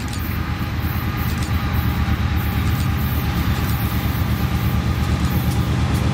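Diesel locomotives of an approaching BNSF freight train running with a steady low engine drone that grows louder as the train nears, with a few faint clicks from the wheels on the rails.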